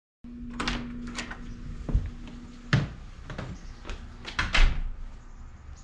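An interior door is opened by its doorknob and shut again: a series of sharp latch clicks and knocks, a few of them heavier thuds. A low steady hum runs under the first half and cuts off about two and a half seconds in.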